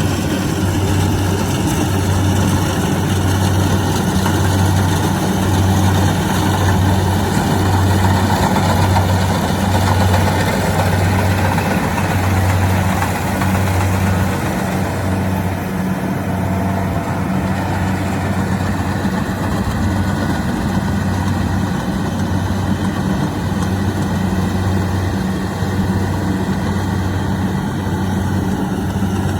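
Diesel engine of a Kubota DC-70 Plus combine harvester running steadily, with an even low throb and a mechanical rattle that eases off about halfway through.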